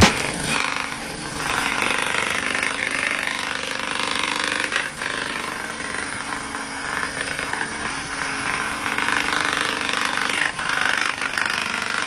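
A power tool running steadily, with a buzzing, rattling noise.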